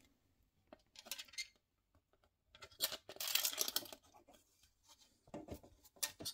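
Small plastic parts clicking and scraping as thin plastic locking rods are pressed into the door panel of a plastic model shipping container, with a longer scratchy scrape about three seconds in.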